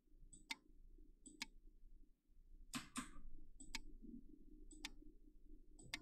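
Faint computer mouse clicks, each a quick press-and-release pair, about one a second, as moves are placed on a digital Go board; a low steady hum runs underneath.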